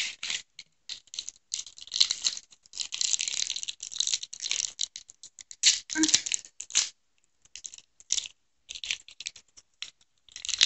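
Crinkling and rustling of a candy packet's wrapper as it is handled and pulled open, in irregular crackly bursts with a short lull a little after the middle.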